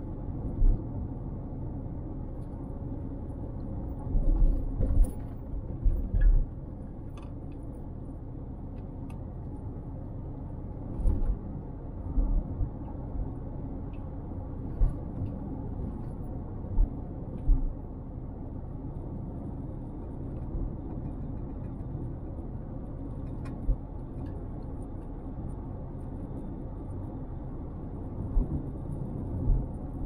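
Car driving along a road with a steady low rumble, broken every few seconds by brief low thumps.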